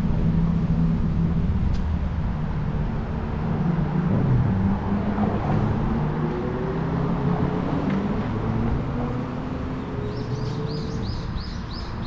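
City street traffic: car engines running and passing, with engine pitches rising and falling. About two seconds from the end, a high chirp starts, repeating about three times a second.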